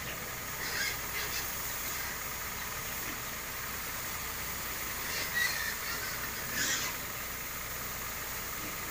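Kawasaki power sprayer's engine running steadily, with several short pig squeals over it, two near the start and a few more past the middle.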